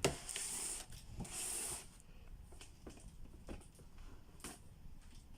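Packing material being pulled out of a cardboard box: two rustling, scraping bursts in the first two seconds, then scattered light knocks and clicks as items are handled.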